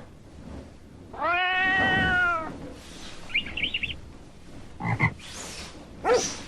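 Cartoon animal sound effects: one long pitched call with a slight arch, then a quick high chirping trill and two short squeaks.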